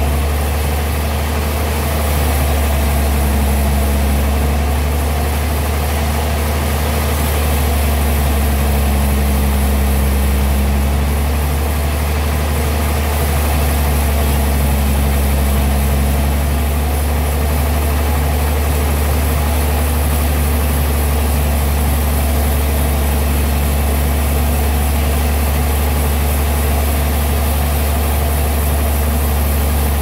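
Large band sawmill running as it saws lengthwise through a wide timber slab: a steady, unbroken low hum.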